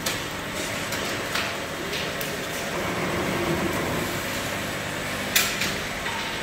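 Automatic bottling line running: the capping machine and bottle conveyor give a steady mechanical hum, with scattered clicks and one sharp click about five seconds in.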